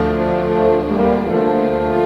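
Orchestral music: sustained chords from strings and brass, the harmony changing about once a second.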